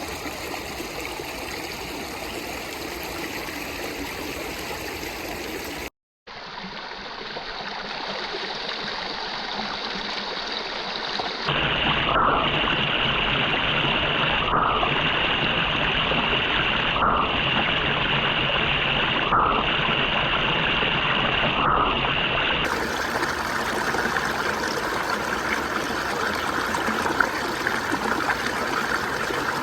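Creek water flowing and trickling steadily, cutting out briefly about six seconds in. Through the middle stretch a steady high-pitched tone runs along with it.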